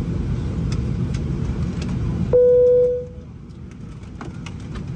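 A single cabin chime rings out about two seconds in, a clear ding that fades within a second, over the steady low rumble inside a Boeing 737-800's cabin. The rumble drops off sharply just after the chime. This is the chime heard as the seatbelt sign goes off at the gate.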